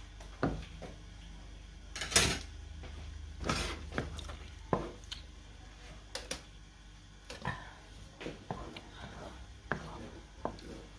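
Wooden spatula scraping and knocking against a nonstick frying pan while stirring thick, sticky purple yam paste (ube halaya). It makes irregular knocks and scrapes, the longest and loudest scrape about two seconds in.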